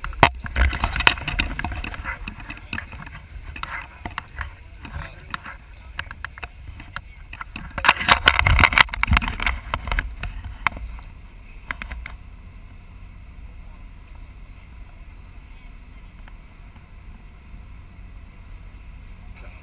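Knocks and rubbing on the camera as it is handled and set in place, loudest about eight seconds in and stopping about twelve seconds in, over a steady low rumble from the boat that carries on alone afterwards.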